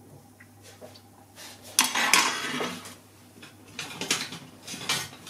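Metal spoon clattering and scraping against a saucepan and a baking dish while béchamel sauce is spread, with a loud burst of clatter about two seconds in and a few sharp clinks near the end.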